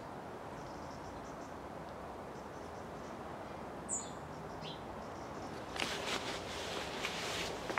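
Steady background hiss with one short, high, falling chirp about four seconds in, then crackling, rustling clicks starting near the end.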